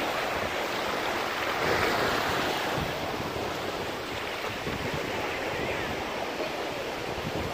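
Small Gulf of Mexico waves breaking and washing up on a sandy beach in a steady surf wash, swelling slightly about two seconds in, with some wind on the microphone.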